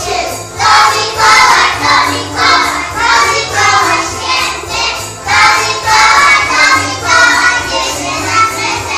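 A group of young children singing a Polish Christmas song about Santa Claus along with recorded backing music that has a steady beat.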